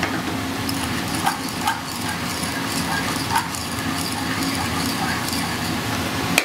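Metal tongs clinking and scraping against a frying pan as spaghetti carbonara is stirred and tossed, with a few sharper clinks, over a steady kitchen hum.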